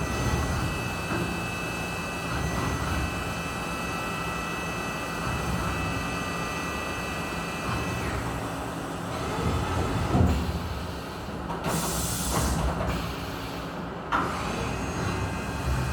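Vertical machining center cutting a metal part: a steady spindle whine with several high tones over a low machining rumble. The tones fade out about eight seconds in, and a brief hiss comes about twelve seconds in.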